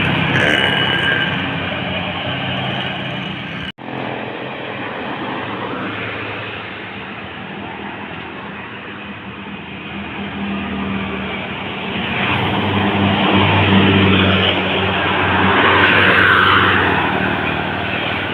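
Tour bus engine running and going past, a low steady hum that swells louder over the last several seconds as the bus draws near. A few steady horn-like tones sound in the first second or so, and the sound drops out for an instant a little under four seconds in.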